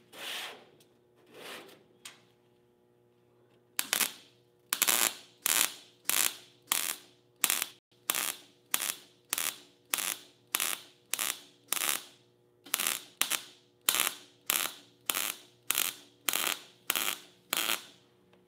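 MIG welder laying a continuous spot weld on sheet metal, each spot overlapping the last: a long string of short welding bursts, about two a second, each one starting sharply. There is a brief pause a little past the middle, and a few fainter bursts come first.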